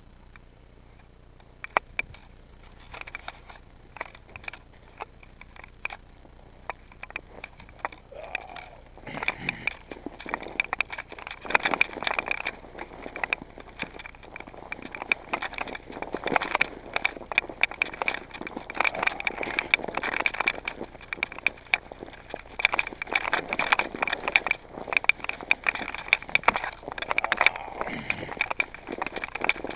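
Mountain bike rattling and clattering as it rolls down a snow-covered trail, with tyres crunching over snow and ice and a dense run of irregular clicks and knocks from the bike. It gets louder and busier about nine seconds in as the bike picks up speed.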